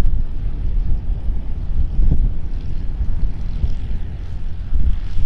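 Zenith CH750 Cruzer light aircraft's Viking 130 engine and propeller running as the plane makes its takeoff run toward the microphone, heard under heavy wind buffeting on the microphone.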